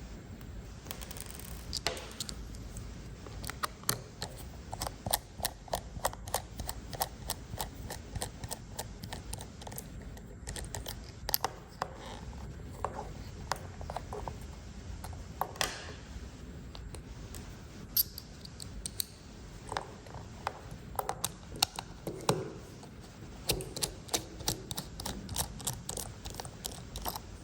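Irregular runs of small clicks and ticks from a hex-bit screwdriver working the tiny screws of a plastic remote-control casing, with the plastic parts being handled and pulled apart.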